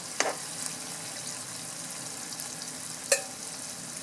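Boneless chicken pieces sizzling steadily in shallow oil in a nonstick frying pan, fully fried, as a slotted spatula moves them about. The spatula knocks lightly on the pan just after the start and gives a louder clink about three seconds in.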